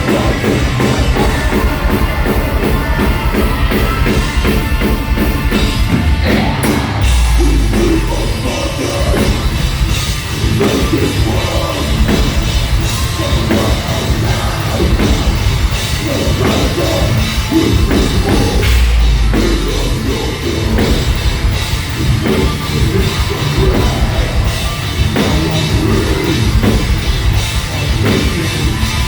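Metalcore band playing live at full volume: a rapid, driving drum kit under heavy rock instruments, with heavy low hits about seven seconds in and again near twenty seconds.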